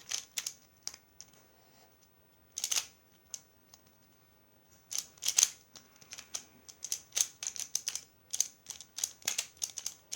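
Plastic clicking of a Pyraminx speed puzzle being turned fast during a timed solve: quick irregular runs of turns, with two short pauses in the first five seconds, then a dense, steady stream of turns.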